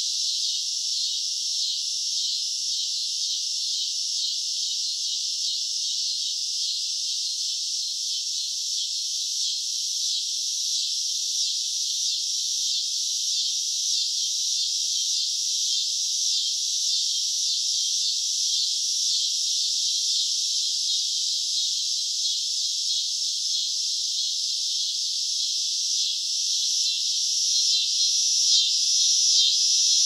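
A chorus of cicadas buzzing steadily, a high-pitched sound with a fast pulsing texture that grows louder near the end.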